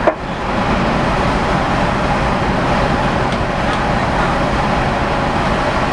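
Steady running noise of a passenger ferry's engines and funnel exhaust heard on the open deck, a continuous rumble and rush. A short sharp click right at the start.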